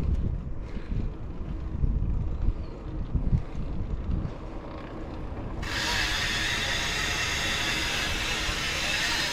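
Wind buffeting the microphone in gusts, then a little over halfway through a steady high hiss starts abruptly.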